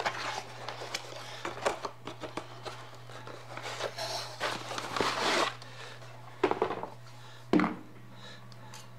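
Cardboard box being opened and a spool of MIG welding wire pulled out of it: rustling and crinkling of cardboard flaps and wrapping with many small clicks, then two sharp knocks about six and a half and seven and a half seconds in as the spool is handled on the bench. A steady low hum sits underneath.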